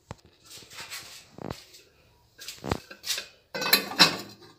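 Aluminium pot lid being set onto a saucepan: a few separate knocks, then a louder rattle of metal on metal about three and a half seconds in.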